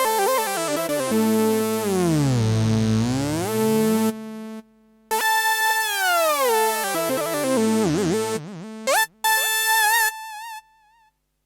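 Roland Fantom-X6 synthesizer playing a sustained synth patch, its notes sliding down and back up in pitch in long glides with short breaks between phrases. It ends on a held note that wavers with vibrato, then cuts off near the end.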